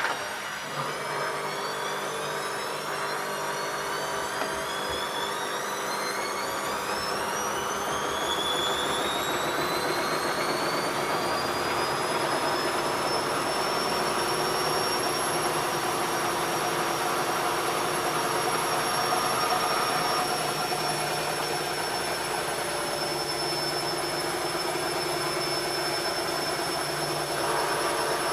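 ELIN A 100 E washing machine spinning up. The motor whine rises in pitch over roughly the first fourteen seconds, then holds steady at full spin speed over a constant rumble from the drum.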